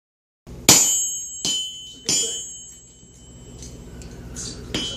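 Sledgehammer blows on hot steel at the anvil: three sharp ringing strikes in quick succession, then lighter taps and a fourth ringing strike near the end.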